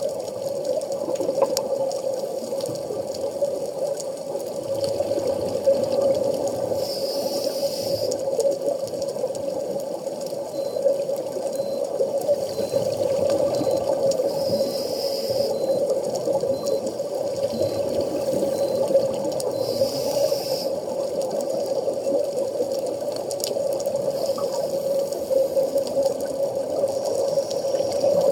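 Underwater sound picked up through a camera's waterproof housing: a steady muffled hum, with a scuba diver's exhaled bubbles rushing past about every six or seven seconds.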